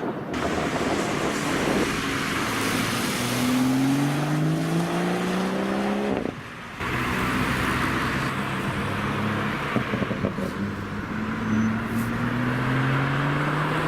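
BMW turbocharged 3.0-litre straight-six accelerating hard, its note rising steadily through a gear. It breaks off briefly for a gear change about six seconds in, then pulls and rises again.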